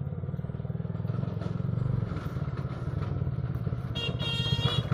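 Motorcycle engine of a homemade jeep-style car running as the car drives up, a fast steady putter that grows a little louder as it nears. A short steady beep comes about four seconds in.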